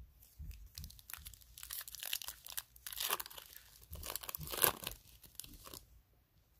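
Wrapper of a baseball card pack being torn open and crinkled: a run of rapid rips and crackles lasting about five seconds, loudest near the end.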